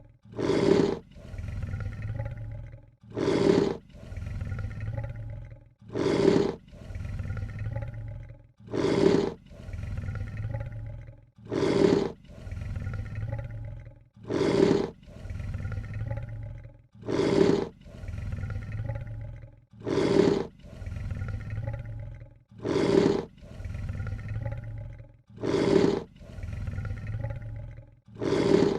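Lion hissing, looped as a sound effect: a short loud hiss followed by a longer, lower rumble, repeating the same way about every three seconds, around ten times.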